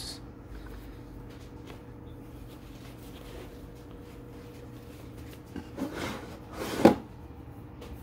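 Objects being handled and set into a fabric sling bag: a few soft rustles and knocks near the end, the loudest a single sharp knock.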